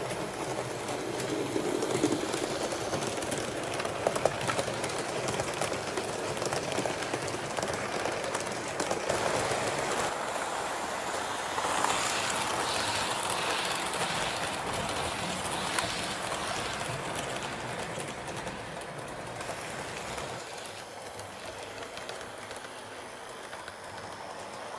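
A train running on rail track: a steady rumble of wheels on rails that fades off over the last few seconds.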